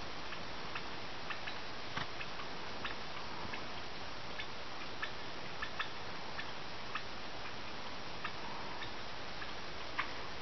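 Wild turkeys giving short, sharp alarm putts, irregular at about two a second, over a steady hiss; one louder putt near the end. The calls are the flock's alarm at a golden eagle, a predator.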